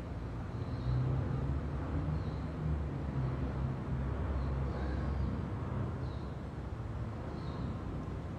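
Steady low background rumble with a soft hiss, level throughout.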